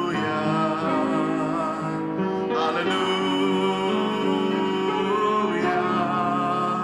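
Slow worship music: held chords with a singing voice over them.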